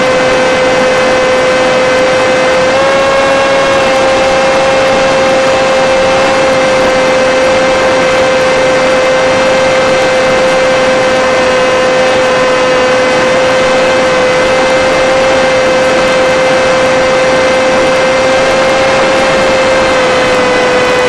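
Electric motor and pusher propeller of an FPV Skyfun RC plane whining at near-steady throttle over a steady hiss. The single held pitch steps up slightly about three seconds in and drops a little near the end.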